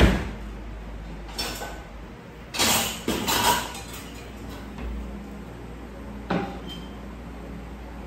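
Kitchen clatter of dishes and utensils being handled: separate knocks and ringing clinks, with a cluster of them about three seconds in and another knock near six seconds, over a low steady hum.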